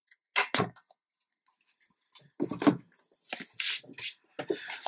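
Stiff paper-covered album boards being handled and slid across a cutting mat: a knock about half a second in, then irregular rustling and scraping of card.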